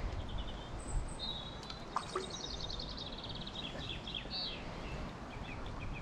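Songbird singing: a quick run of notes falling in pitch about two seconds in, followed by shorter phrases, over a steady low background rumble.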